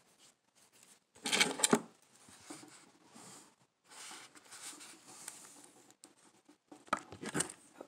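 Close handling noise of hands working fishing line right by the phone's microphone while tying a knot: rustling and rubbing, with a cluster of sharp clicks about a second and a half in and another near the end.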